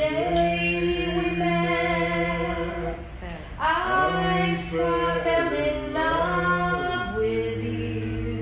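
A cappella voices singing long held chords in harmony, with no words heard, moving to a new chord every couple of seconds.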